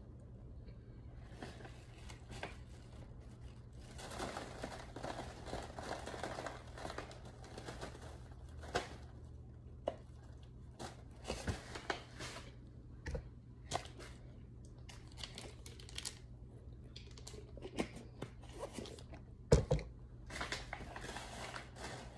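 Crisp crunching and crackling of a person chewing powdery pressed chalk, with scattered small clicks such as a spoon against a plastic tub, and one sharp knock near the end.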